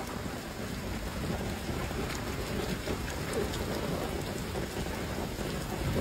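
Heavy typhoon rain pouring onto wet brick paving, a steady hiss of rain and splashing surface water.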